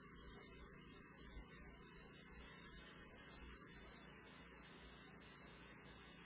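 High, steady insect buzz that swells over about the first second and a half and then slowly fades.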